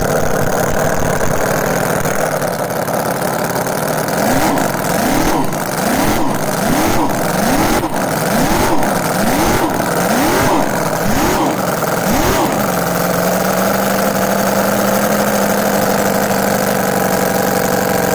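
Conley Stinger 609 quarter-scale 6.09 cubic inch V8 with a twin-screw blower, idling and then revved about ten times in quick, even blips before it settles back to a steady idle. The throttle is surged up and down on purpose because the engine is running on a test stand with no load, and long unloaded running can damage it.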